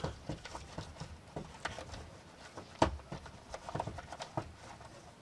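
A series of irregular sharp clicks and knocks, with one louder knock near the middle, like small objects being handled or tapped.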